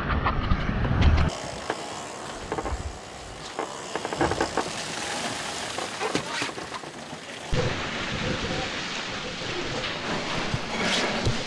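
Strong wind buffets the microphone at first, then a steady rush of wind and spray with scattered knocks and clicks of deck gear on a Volvo Ocean 65 racing yacht sailing hard.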